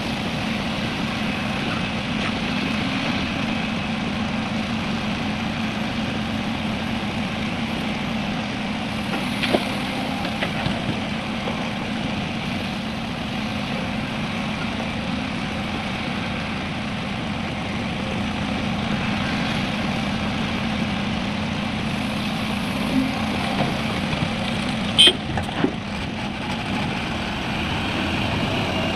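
Heavy diesel engine running steadily, with a few short sharp knocks, the loudest a cluster about 25 seconds in.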